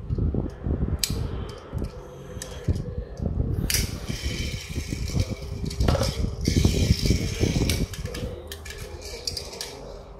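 Handling noises as a small die-cast toy car and its cardboard box are handled and set down on a tile floor: rustling, with many small clicks and knocks, over a low rumble and a steady fan hum.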